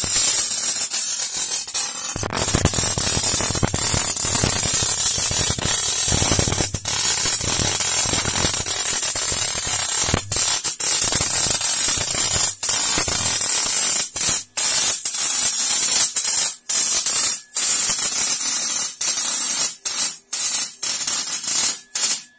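Electric welding arc crackling and hissing steadily as a weld bead is laid on steel, breaking off briefly several times in the second half.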